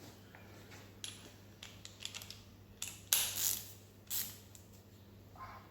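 Scattered light metallic clicks and clinks of hand tools being worked on an engine bolt, with a short louder scraping rush about three seconds in and another just after four seconds.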